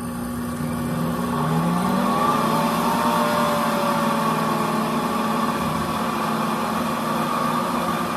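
Pampered Chef cooking blender running on its grind cycle, milling dry quick oats into flour. The motor winds up over the first couple of seconds and then runs steadily.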